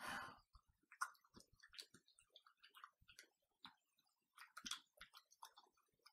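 A person lapping milk from a bowl with the tongue like a cat: faint, irregular wet mouth clicks and smacks.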